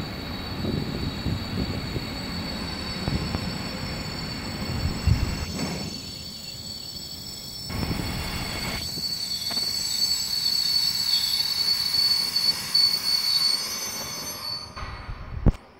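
Freight train of tank wagons rolling past, wheels on rail making a low rumble with a thin, steady high-pitched wheel squeal that rises and wavers in the last few seconds. A single sharp click comes just before the end.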